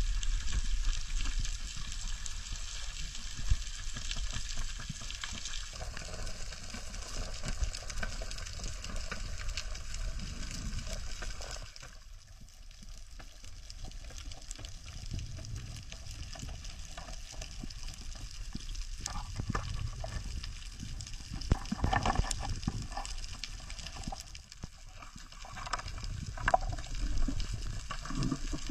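Underwater ambience on a coral reef: a constant fine crackle, typical of reef sound, over a low rush of water moving past the camera. In the second half a few sharper clicks and knocks stand out.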